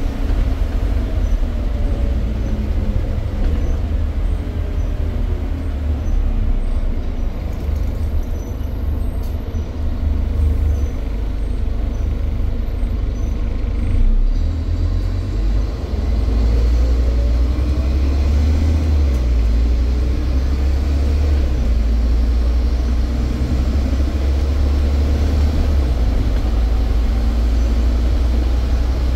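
Scania N230UD double-decker bus's five-cylinder diesel engine and driveline running as the bus drives, heard from the upper deck: a steady low drone with a whine that falls in pitch in the first few seconds and rises again a little past halfway, when the low engine note grows louder and fuller as the bus picks up speed.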